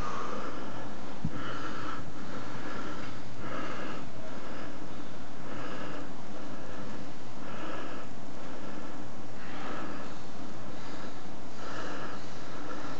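A person breathing heavily close to the microphone, one loud breath about every second or two.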